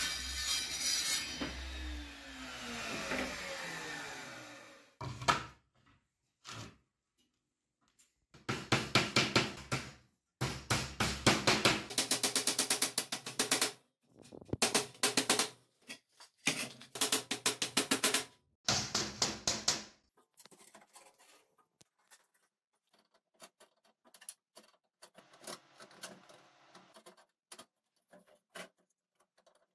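A circular saw blade cutting a wooden board, then winding down with a falling whine over about four seconds. Later come five bursts of fast, even clattering strikes, each one to three seconds long, with faint scattered ticks after them.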